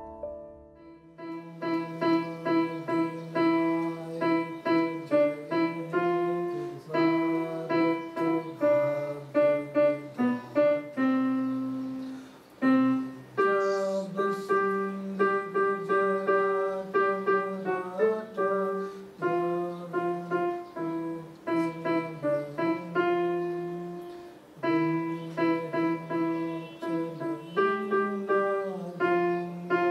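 Electronic keyboard playing a slow melody in a piano sound, one note at a time over held low notes.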